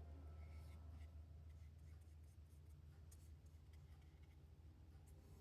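Faint brush strokes scratching on watercolor paper as paint is dragged around, over a low steady hum.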